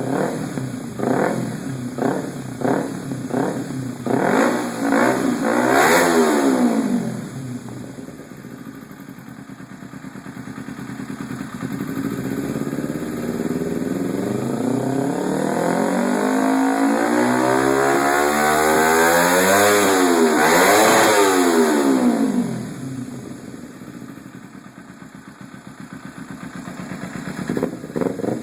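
Kawasaki Ninja 250R's parallel-twin engine with an aftermarket exhaust. It revs in quick rising bursts and swells to a loud peak about six seconds in, then builds slowly to a second loud peak as it passes close by, and falls away.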